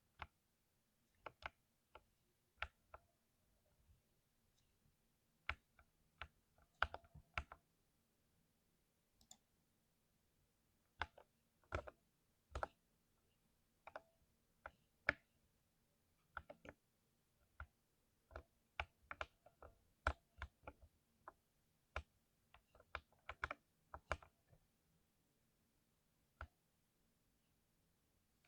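Mechanical keyboard with lubricated switches being pressed: slow, irregular key presses, sometimes a few in quick succession, with pauses between.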